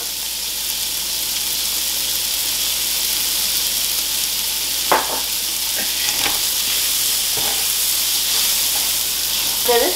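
Diced chicken frying in hot olive oil in a skillet, sizzling steadily, with a few short knocks in the pan about halfway through.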